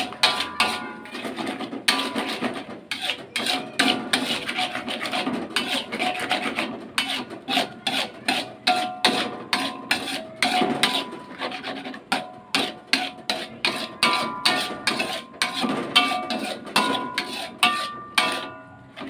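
A spatula scraping and clinking against a metal pan in quick repeated strokes, with short metallic rings, as a coconut-milk chili dish is stirred.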